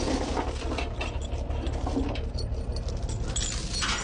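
Diesel engine idling low and steady, with irregular metallic clinks and rattles of load-securing chains and binders being handled over it.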